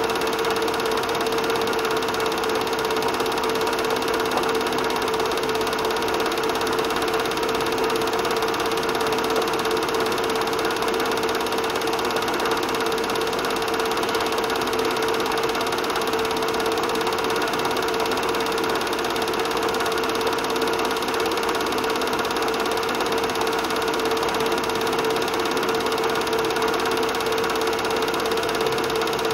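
Film projector running: a steady mechanical whir and clatter with one constant tone, unchanging across the cuts in the film.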